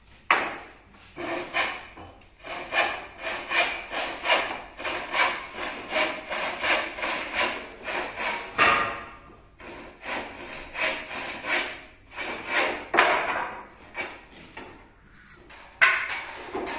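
Handsaw cutting through a timber ceiling brandering batten: steady back-and-forth strokes about two a second, with two short pauses.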